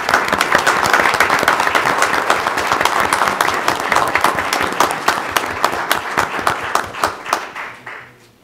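A room of people applauding, a dense steady round of clapping that tapers off and dies away near the end.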